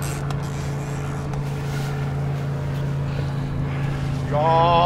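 Boat engine running steadily with a low, even hum, with wind noise on the microphone; a brief voice comes in near the end.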